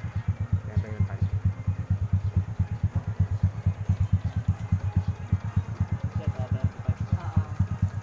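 Motorcycle engine idling close by: a steady low putter of about seven even pulses a second.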